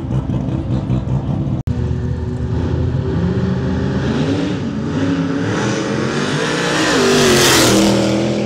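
V8 cars' engines revving hard, the pitch climbing and falling as they rev. There is a split-second dropout about one and a half seconds in, and a car goes past loudest near the end.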